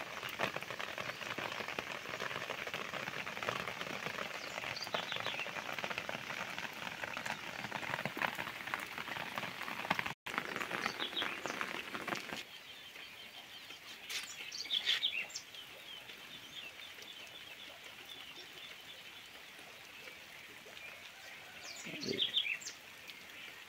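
Steady rain falling on wet ground and puddles, heavier for the first half and lighter after about twelve seconds. Birds chirp a few times over the lighter rain.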